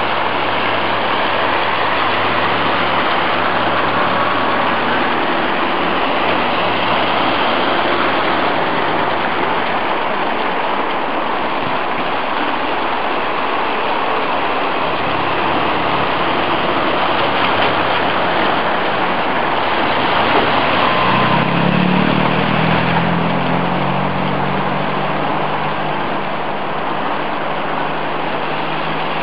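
Steady rush of water flowing through a shallow ford, with the engines of old Series Land Rovers running as they drive through it. About two-thirds of the way in, one engine's note rises and then holds steady as another Land Rover comes on.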